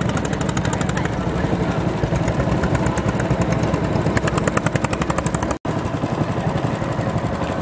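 Small boat engine running steadily close by, a fast even pulsing beat. The sound drops out for an instant about five and a half seconds in.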